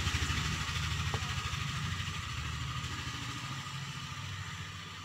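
An engine's low, rapidly pulsing rumble that fades away.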